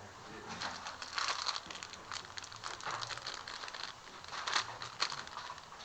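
Irregular rustling and crinkling with scattered light clicks, as of small items or packaging being handled.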